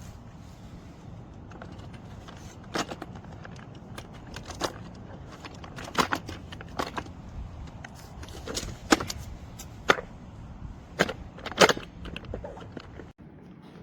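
A series of sharp clicks and clacks at irregular intervals, some in quick pairs, over a steady low hum.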